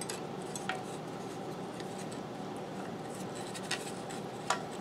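Wooden cut-out pieces being handled and slid on the scroll saw's metal table: light scraping, with a few soft clicks.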